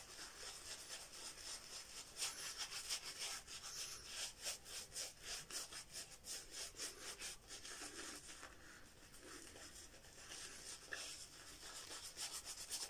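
Horsehair shaving brush working Mitchell's Wool Fat soap lather over a stubbled face: faint, quick, bristly brushing strokes, wet and soft, a little fainter for a couple of seconds past the middle.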